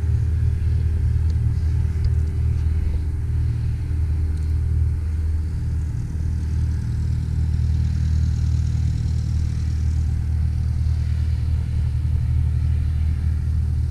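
A steady, low engine hum: an engine running at an even speed, with no change in pitch.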